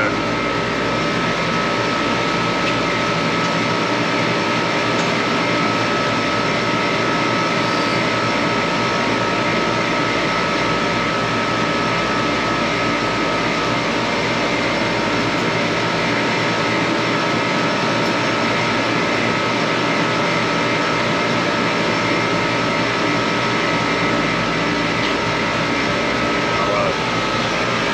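Steady drone of running air-conditioning machinery, with a steady high whine over a low hum.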